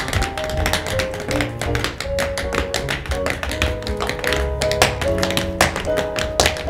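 Tap shoes striking a stage floor in a fast tap-dance routine, rapid taps over piano accompaniment.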